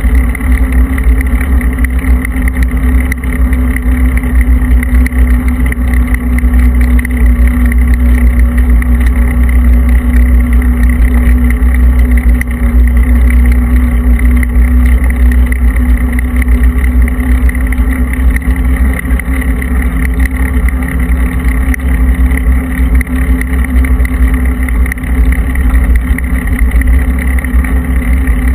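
Steady, loud wind rumble buffeting a camera microphone while riding along, mixed with tyre noise rolling over rough new asphalt.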